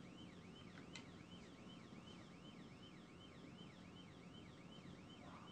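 Police cruiser siren in a fast yelp, about four rising-and-falling cycles a second, heard faintly over low road noise during a pursuit.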